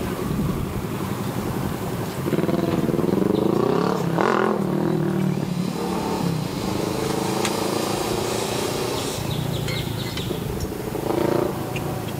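An engine running with its revs rising and falling, loudest a couple of seconds in and briefly again near the end.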